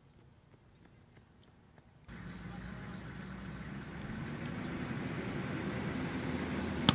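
A motor vehicle running and approaching, its engine noise coming in suddenly about two seconds in and growing steadily louder; a sharp knock near the end. Before the vehicle comes in there is only faint sound with a few light ticks.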